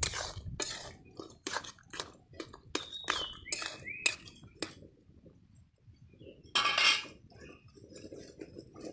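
Steel ladle clinking and scraping against a steel kadai while stirring curry, a quick run of sharp clinks, then a louder scraping rasp about two-thirds of the way through. A bird chirps a few times in the background.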